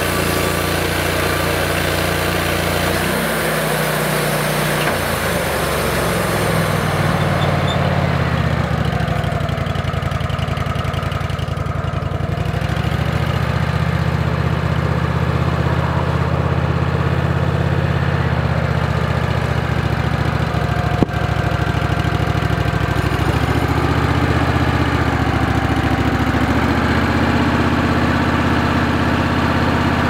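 Wood-Mizer LX150 portable sawmill's engine running steadily, with the band blade sawing through a red pine log for the first several seconds until the hiss of the cut stops. A single sharp click comes about two-thirds of the way through.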